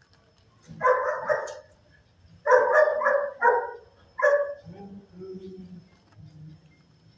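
Dog barking in a shelter kennel: short runs of loud barks, two or three, then three or four, then a single bark, followed by fainter, lower-pitched sounds.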